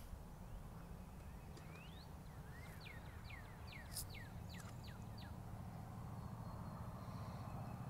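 A songbird singing a quick run of about ten short whistled notes, mostly slurring downward, over a steady low rumble.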